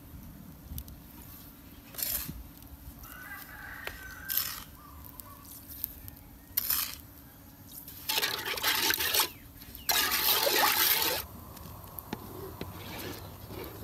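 A rooster crowing, with spoon stirring in a large metal pot of liquid. Two loud bursts of noise, about a second each, come about eight and ten seconds in.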